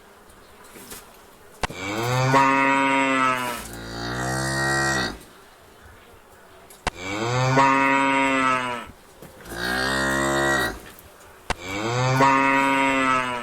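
Cattle mooing: five long, drawn-out moos with short pauses between them, some dropping in pitch toward the end.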